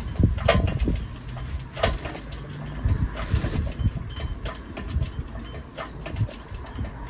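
Scattered metallic clanks and knocks from a 200Tdi diesel engine hanging on a chain from a hydraulic engine crane as it is moved and lowered, over a steady low rumble.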